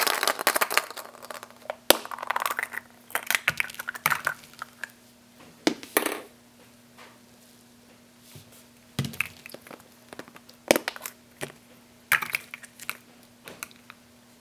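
Hollow plastic toy eggs being handled and pulled apart by hand: their halves click and clatter against each other, with rustling handling noise, in short bursts separated by pauses.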